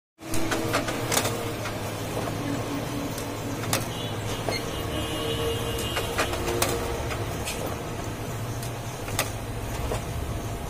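Toshiba e-Studio 2309A photocopier running an automatic two-sided copy job: a steady motor hum with scattered sharp clicks and brief whines as sheets are fed, turned and pushed out into the output tray.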